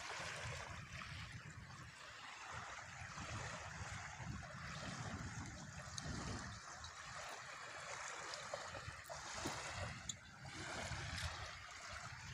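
Small waves lapping and washing on a stony lake shore, a steady uneven wash with a low rumble underneath.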